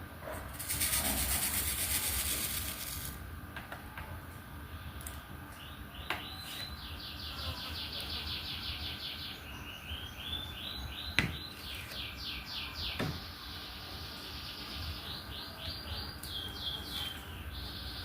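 A small bird chirping in quick runs of short falling notes, repeated phrase after phrase through the second half. Early on there is a two-second hissing rattle, and a few sharp taps sound throughout.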